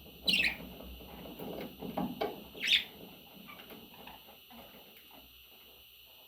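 Budgerigar giving two short, sharp chirps that fall in pitch, a couple of seconds apart, with soft scratching or rustling between them.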